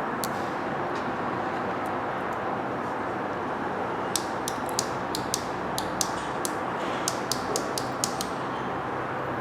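A run of about fifteen sharp, irregular clicks starting about four seconds in and stopping about four seconds later, over a steady background hiss.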